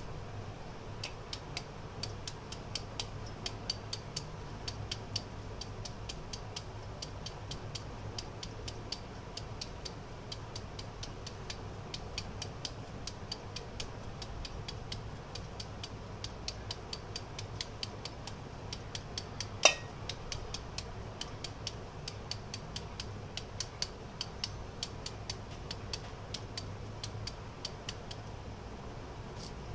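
Kitchen knife making quick repeated cuts into a peeled beetroot held in the hand: a steady run of crisp light ticks, about three a second, with one louder click about two-thirds of the way through. A steady low hum runs underneath.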